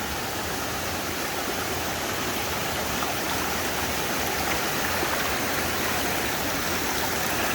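Stream water rushing steadily at a river crossing, close by.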